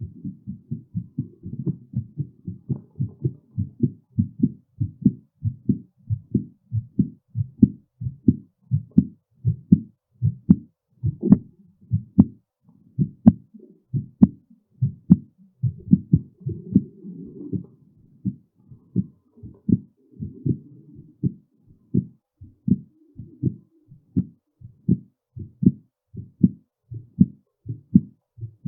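Human heartbeat recorded close up, beating in quick, regular pulses with its rate raised by physical exertion.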